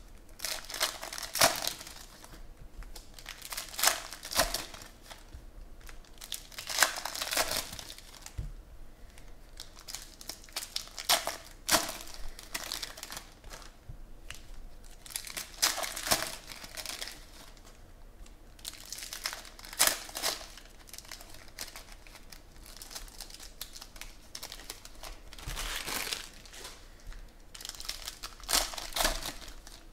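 Foil wrappers of 2017 Panini Prizm Football trading-card packs being torn open and crinkled by hand, in separate bursts every few seconds.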